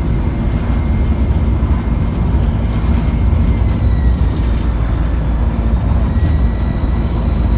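ADL Enviro200 single-deck bus under way: a deep engine and road rumble with a thin, high, steady turbocharger whine that drops slightly in pitch about four seconds in.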